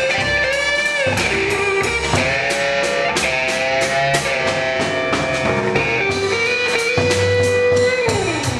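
Live band instrumental: an electric guitar plays a lead line of sustained, bent notes over drums and upright bass, ending on a held note that slides down in pitch near the end.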